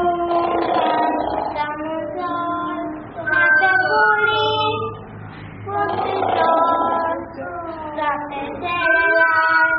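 Children singing a song in phrases, with a woman's voice among them.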